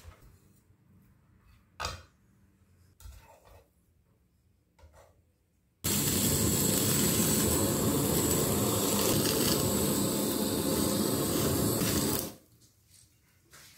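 Handheld kitchen blowtorch burning steadily for about six seconds while flame-searing diced fish, starting and cutting off abruptly. Before it, a few light knocks from handling the fish and plate.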